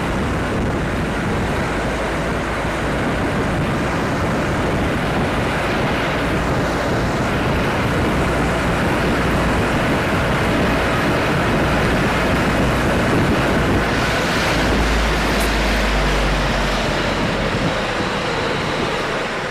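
Steady engine and road noise of a small goods vehicle driving along, an even rush with no breaks. A deeper rumble swells for a couple of seconds about fifteen seconds in.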